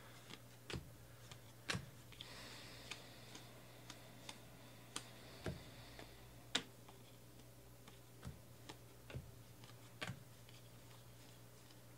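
2018 Panini Classics football cards being flipped and slid through the hands: faint, irregular clicks and taps of card stock, with a soft rubbing of cards sliding over each other in the first half, over a low steady hum.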